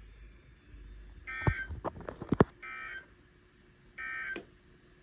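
EAS end-of-message data tones: three short warbling bursts of digital tone about 1.35 s apart, closing a NOAA Weather Radio required weekly test. Several sharp clicks fall between the first and second burst, and the last of them is the loudest sound.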